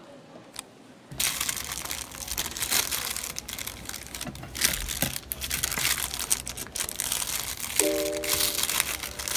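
Black plastic mailer bag crinkling as it is handled, starting about a second in. Music with a few held notes comes in near the end.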